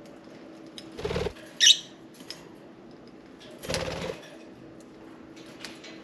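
Budgies: a brief flutter of wings about a second in, then one sharp, high chirp, and a second flutter near the middle, with faint light clicks between.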